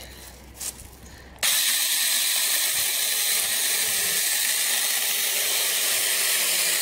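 A MIAN MU 48V cordless 6-inch mini chainsaw starts suddenly about a second and a half in, then runs steadily at full speed as its chain cuts through a branch about two inches thick.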